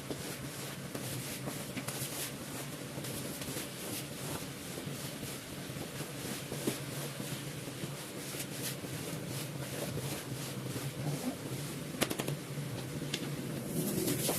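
A carpet-cleaning machine running with a steady hum, with a quick run of short scratchy scrubbing strokes over it and a sharper click about twelve seconds in.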